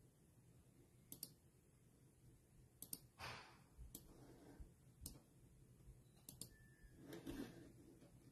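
Near silence: room tone with a handful of faint, sharp clicks scattered through it, some in quick pairs.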